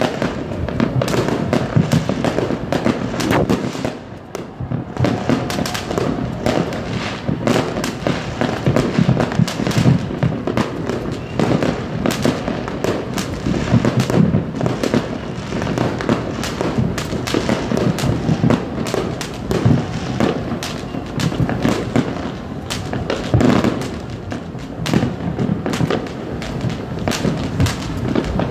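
Aerial fireworks bursting in rapid, overlapping succession: a near-continuous barrage of bangs and crackles, with a brief lull about four seconds in.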